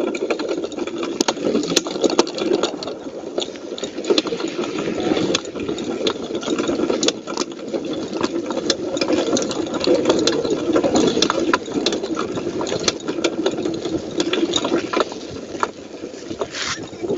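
Bike riding over a rough dirt trail: a steady rumble with many rattles and sharp knocks.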